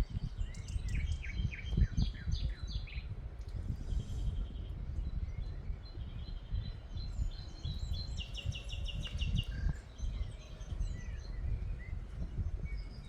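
Several wild birds singing and chirping, with a quick trill of about ten notes around the middle. A steady low rumble lies underneath.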